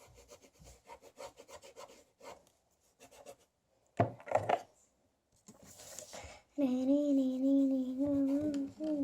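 Quick scratchy strokes of a paintbrush rubbing on paper, with a louder scrape about four seconds in. Near the end comes a long, slightly wavering pitched tone, louder than the brushing.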